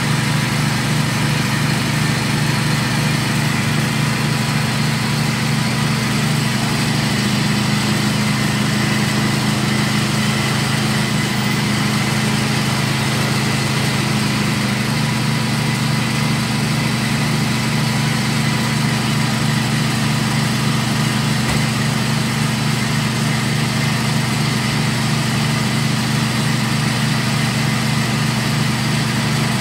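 Belt-driven screw-type peanut grinding machine running steadily while grinding peanuts, a constant low mechanical drone.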